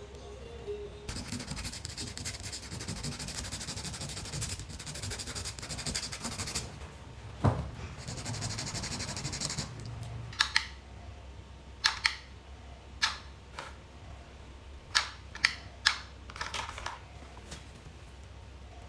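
Hands-on repair work noises: a rough scratching hiss that lasts several seconds, then a string of about eight sharp clicks and taps spaced roughly a second apart.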